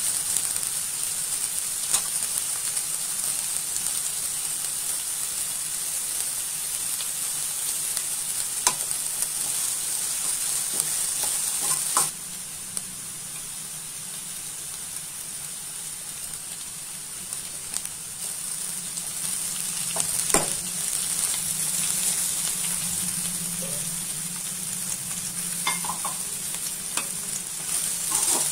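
Chopped onion, green chillies and carrot sizzling in hot oil in a kadai, stirred with a perforated steel ladle that knocks against the pan now and then. The sizzle drops quieter suddenly about twelve seconds in and builds back up toward the end.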